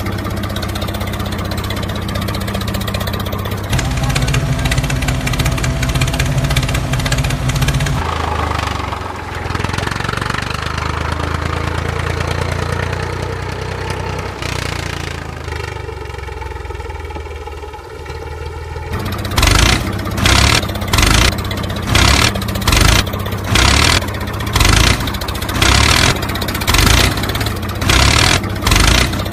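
Tractor engine sound running and revving in several cut-together stretches. From about two-thirds of the way in, it turns into a loud, regular pulsing chug, about one beat every 0.8 seconds.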